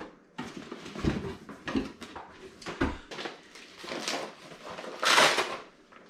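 PC parts being handled during a build: a few dull knocks and bumps, then a loud brief rustling scrape about five seconds in.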